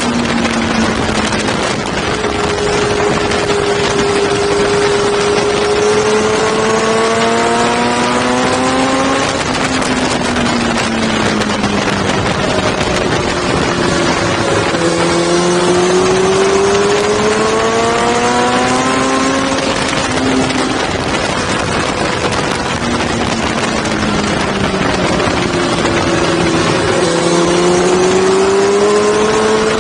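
Sport motorcycle engine running hard, its pitch climbing in three long pulls and dropping back twice in between, under loud wind rush over the camera microphone.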